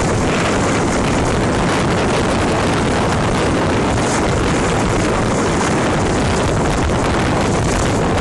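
Steady rush of wind on the microphone with the low noise of a small motorboat underway on open water beneath it.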